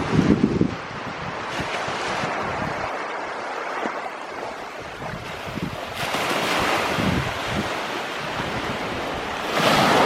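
Surf breaking and washing up a sand beach, with wind buffeting the microphone in gusts. A louder rush of surf and wind swells near the end.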